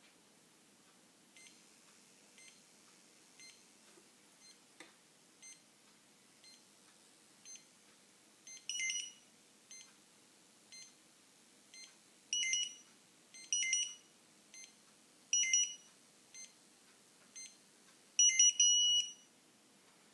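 Opticon OPN-2002 barcode scanner giving off a high-pitched electrical buzz each time it is active: faint short blips about once a second, and five louder buzzes of about half a second, the last near the end lasting about a second. The uploader doesn't think the scanner is supposed to make this sound.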